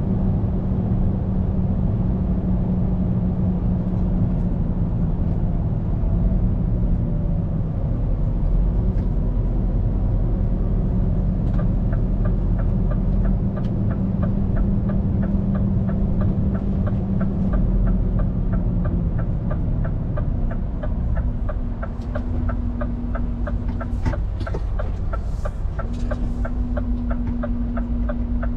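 Scania P410 truck's diesel engine running, heard from inside the cab, its note stepping up in pitch about two-thirds of the way through. From partway in, the turn-signal relay ticks steadily at about three ticks a second.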